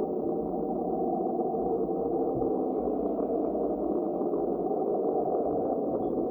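The 'Julia' hydrophone recording: a steady, rough drone with no breaks or changes in pitch, an ocean sound that NOAA attributes to a large iceberg running aground.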